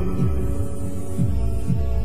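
Instrumental passage of a song: held chords over deep, low drum beats that drop in pitch, pulsing like a heartbeat.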